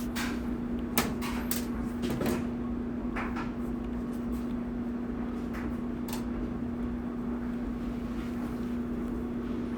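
Short clicks and knocks from the sheet-metal dryer cabinet and lid being handled, a cluster in the first few seconds, the loudest about a second in, and a couple more later, over a steady low hum.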